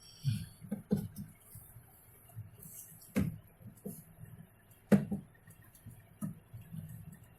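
Handling noise of a greased rubber drain bellow being pushed into place in a washing machine: scattered soft knocks and scrapes, with two sharper knocks about three and five seconds in.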